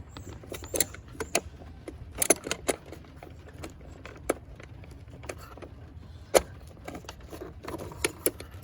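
Pliers clicking and knocking against plastic and metal parts as a plastic clip is pried loose: scattered sharp clicks at irregular intervals, the loudest about two seconds in and again about six seconds in, over a low steady hum.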